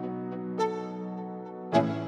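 Background music: held chords, with a struck note about half a second in and a louder chord hit near the end.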